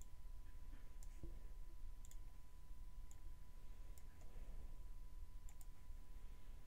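Faint computer mouse clicks, some single and two quick double clicks, over a low steady background hum.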